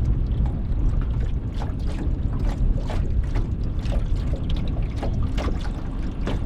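Wind buffeting the microphone and water lapping against a small boat's hull, with scattered light knocks and splashes.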